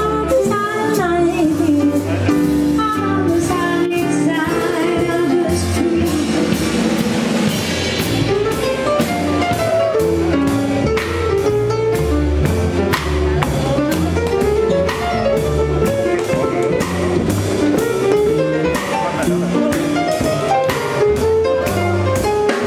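Live small jazz band playing an up-tempo swing tune: drum kit keeping a steady beat under a walking low line and saxophone, with a woman singing.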